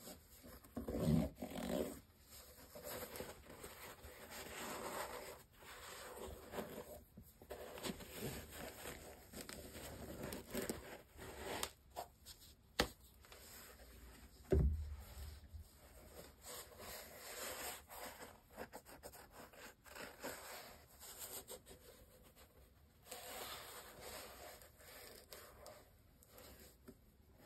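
Cotton-gloved hands handling Nike Book 1 sneakers: faint rubbing and scraping on the leather and canvas uppers and rubber soles. There are a couple of soft thumps, the loudest about halfway through, and a sharp click shortly before it.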